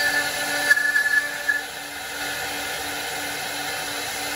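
Four-head CNC router with a rotary attachment carving wooden posts: the spindles run with a steady hum while the cutters bite into the turning wood. A higher cutting note with a few louder peaks fades out about a second and a half in, leaving a steadier run.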